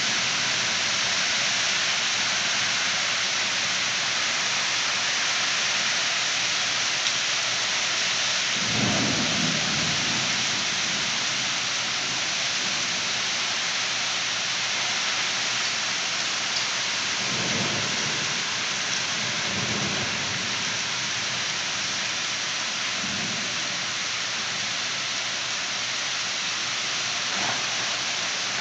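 Heavy rain pouring steadily in a thunderstorm, with low rolls of thunder about nine seconds in and several more from about seventeen to twenty-three seconds in.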